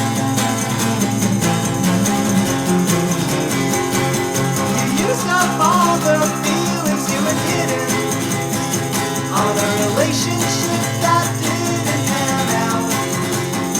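Music: a song led by guitar, with a voice singing in places.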